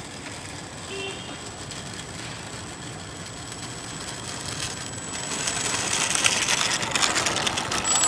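Radio-controlled model aircraft flying, a rattly, buzzing noise that grows louder over the last few seconds as it comes closer.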